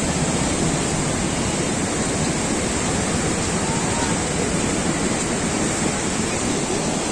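Steady rushing of a muddy river in full flood, its fast, churning water making an even, unbroken noise.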